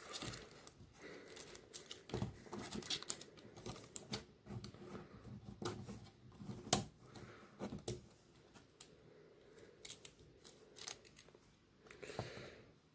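Faint, irregular plastic clicks and rubbing as the parts of a Transformers Studio Series Offroad Bumblebee action figure are folded and swivelled by hand, with a few sharper snaps about two, six and seven seconds in.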